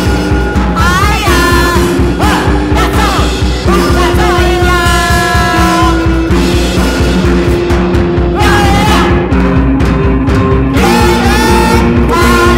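Bass-less noise-rock band recording: guitars playing long held and sliding notes over a fast, even drum pulse.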